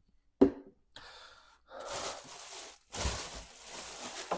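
A man's short grunt, then two long, heavy breaths out.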